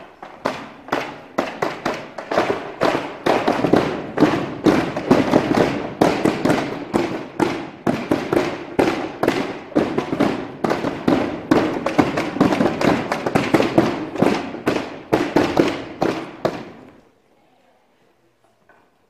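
A dense run of sharp percussive hits, several a second, going on for about seventeen seconds and then stopping abruptly.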